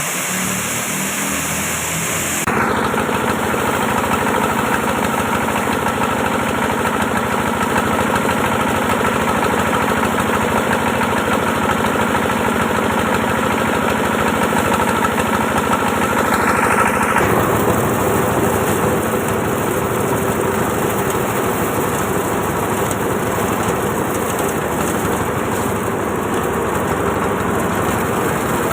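An engine running steadily, its note changing abruptly about two and a half seconds in and again around seventeen seconds.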